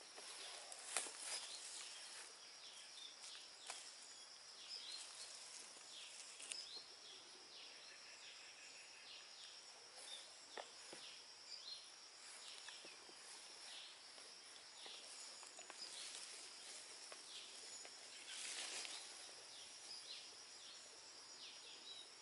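Faint outdoor ambience: a steady high insect drone, with light rustles and ticks of leaves now and then as a baby monkey moves and handles plants in the undergrowth.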